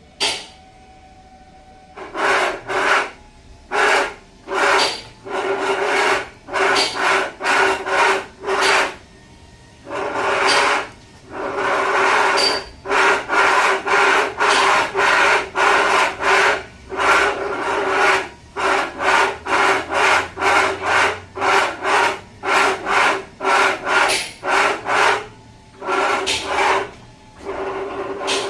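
Electric power steering rack from a Land Rover model grinding in repeated short bursts, about one to two a second, as it is driven back and forth. Each burst carries a steady motor hum under a rasping grind, the grinding fault that the rack is being repaired for. A single sharp knock comes right at the start.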